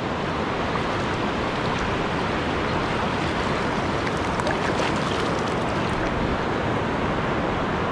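Shallow ocean surf washing over sand, a steady even rush.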